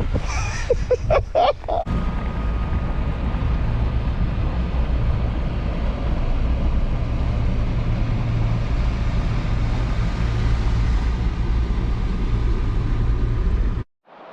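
Boat motor running steadily under way, a loud low drone with a faint steady whine above it. It cuts off suddenly near the end.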